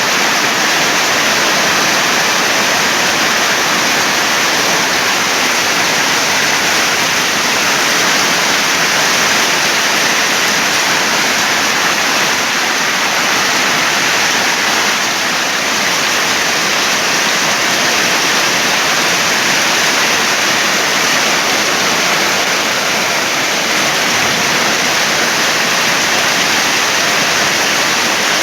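Heavy rain pouring down during a storm: a loud, steady hiss of falling water that holds even throughout.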